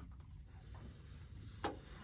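A single short knock near the end over a faint low rumble, from hand-tool work on tight hydraulic hose fittings.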